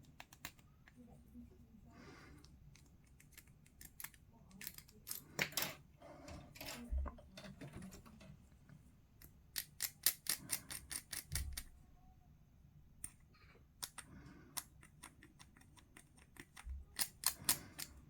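Clusters of quick, sharp clicks and light scraping from hobby tools working small plastic miniature parts: trimming injection points and mould lines.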